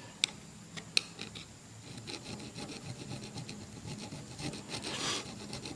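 Phillips screwdriver scraping leftover grip rubber and dried grip glue off the end of an ATV handlebar tube, in short irregular scraping strokes. Two sharp clicks come in the first second, and a louder scrape comes near the end.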